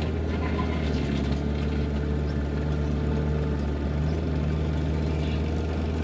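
JCB backhoe loader's diesel engine running steadily under load while the backhoe arm digs and lifts soil, a constant low drone with little change in pitch.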